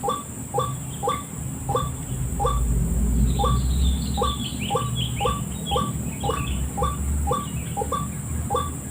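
White-breasted waterhen (ruak-ruak) call, a short note repeated in an even rhythm about two to three times a second, played from a recording as a trapping lure. In the middle, higher falling chirps from another bird come in over it, along with a low rumble.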